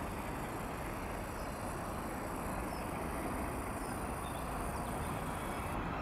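Distant BR Class 56 and Class 50 diesel locomotives working, heard as a steady, even rumble.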